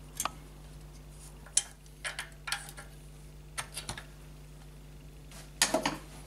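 Spanners and small metal parts clinking and tapping against engine fittings by hand, scattered sharp clinks with a busier cluster near the end. A steady low hum runs underneath.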